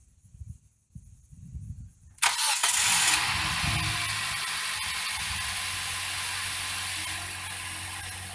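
2010 Hyundai Elantra's engine starting about two seconds in, after a few soft low knocks: it catches abruptly, is loudest for the first second, then settles into a steady idle.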